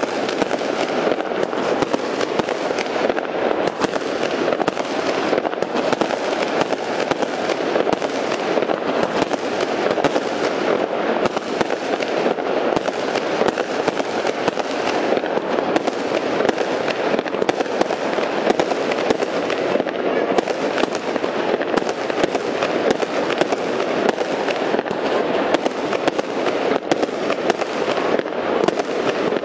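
Fireworks display: aerial shells bursting in a dense, unbroken barrage of bangs and crackle, with no pause between them.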